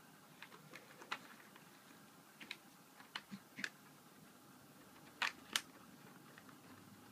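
Border Collie puppies play-fighting on grass, with scattered short sharp sounds; the two loudest come close together about five seconds in.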